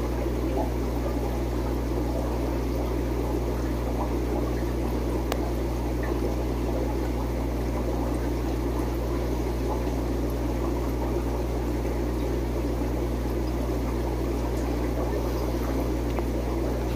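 Aquarium equipment running: a steady low hum with a constant water-like rush.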